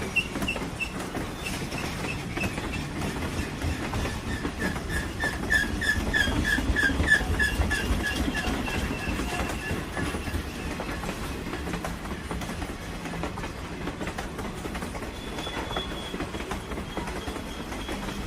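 Train rolling on the rails with a low rumble and clatter, and a run of high, rapidly repeated squealing tones that is loudest about six to seven seconds in.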